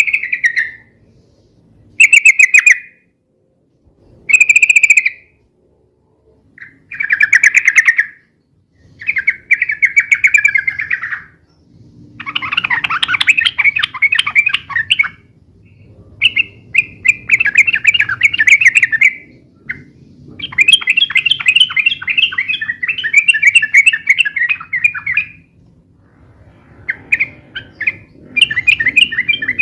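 Yellow-vented bulbuls singing: short bubbly phrases about every two seconds at first, then from about halfway through longer, rapid, chattering rolled phrases of several seconds each, the long rolling song used as a lure and tutor recording.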